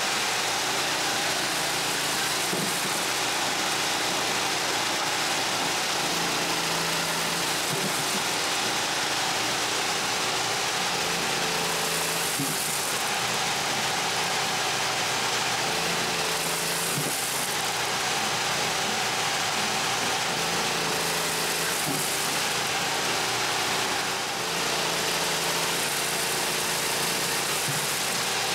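Craftex mini portable dust collector (3/4 HP blower) running steadily, a constant motor whir and air rush as it pulls sawdust through the hose. A lower engine hum underneath comes and goes every few seconds, from the inverter generator that powers it.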